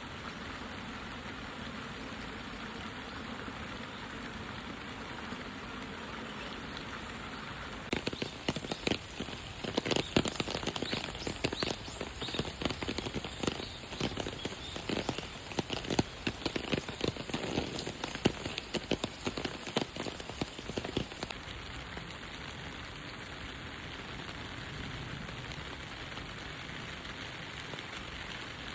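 Steady rain falling. For a stretch in the middle it is joined by many loud, sharp drops striking close by, then it settles back to an even patter.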